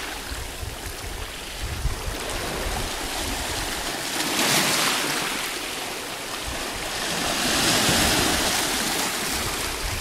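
Sea waves washing over shoreline rocks: a hissing wash of foaming water that swells twice, about halfway through and again near the end, as each surge comes in.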